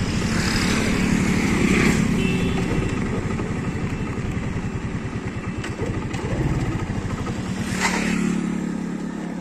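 TVS Radeon's 110cc single-cylinder engine running unevenly as it runs dry of fuel, its low pulsing dying away about eight seconds in as the engine cuts out.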